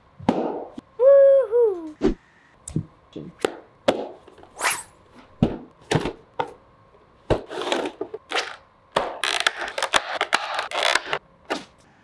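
Unboxing handling noises: a string of separate short knocks and taps as the art toy's cardboard box and packaging are handled, with a brief squeak falling in pitch about a second in and a stretch of dense scraping for a couple of seconds near the end.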